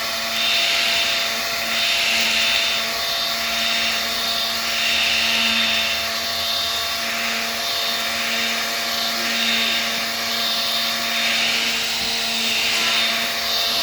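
Electric sander running steadily on wood, a loud hum under a hiss that swells and fades every second or two.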